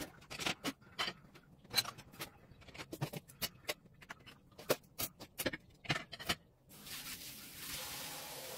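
Dishes and cutlery clinking and knocking against each other as they are handled at an open dishwasher rack, in a quick irregular run of sharp clinks. Near the end the clinks stop and a soft steady hiss sets in.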